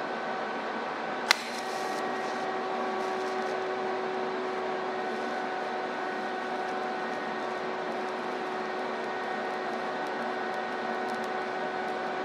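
TIG welding arc on a steel tube cluster: a sharp crack about a second in as the arc strikes, then a steady electric hum with a faint hiss while the weld is laid with hand-fed filler rod.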